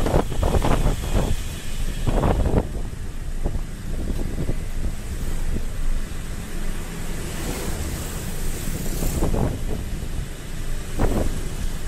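Wind buffeting the microphone of a camera on a moving motorcycle, coming in irregular gusts over a steady low rumble of engine and road noise.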